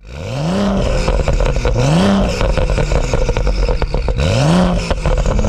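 Stage 2 tuned BMW M135i's N55 turbocharged straight-six revved three times through its sport-catted exhaust. Each blip rises in pitch and falls back, with a dense crackle throughout.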